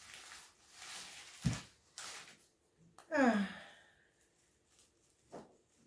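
A woman breathing out audibly, then sighing with her voice falling steeply in pitch, a little over three seconds in. There is a short low knock about a second and a half in, and another small knock near the end.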